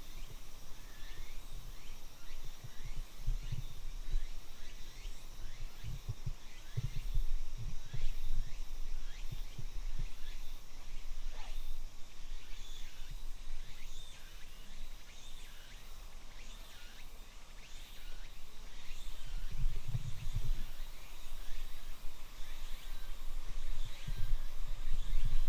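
Woodland ambience: birds chirping again and again in short falling calls over a steady, faint insect buzz. Scattered low thumps and rumbles come with it, loudest about a third of the way in and near the end.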